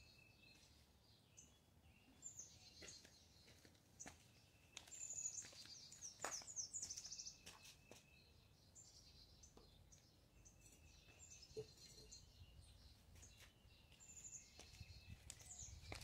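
Faint birds chirping in short bouts of quick, high, falling calls, with a few soft taps in between.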